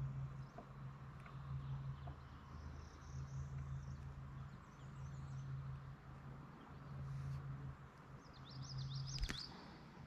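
A low hum that swells and fades over a few seconds at a time, with a bird giving a quick run of high chirps about eight and a half seconds in, and a single sharp click just after.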